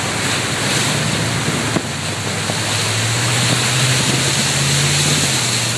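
Cars driving through a flash-flooded street, their tyres throwing up spray over a steady rush of water. A vehicle's engine hum grows louder about three seconds in, then drops away near the end.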